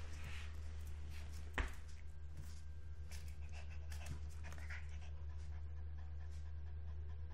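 A Pomeranian's claws clicking and scratching on a tile floor as it paws and lunges, with one sharp knock about one and a half seconds in. The dog pants, over a steady low hum.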